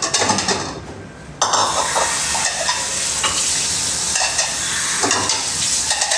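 Kitchen work: a few clinks of dishes, then about a second and a half in a steady hiss starts suddenly and keeps on.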